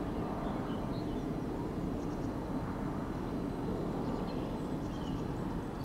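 Steady, low outdoor background rumble that neither rises nor falls, with faint high bird chirps now and then.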